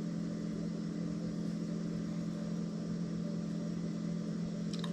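Steady low machine hum with a faint hiss, unchanging throughout, and a brief click near the end.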